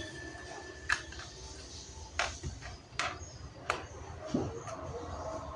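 Scattered sharp clicks and taps of a screwdriver and small metal screws as a 2.5-inch SSD is screwed into its drive bracket, about five in a few seconds, over a low steady hum.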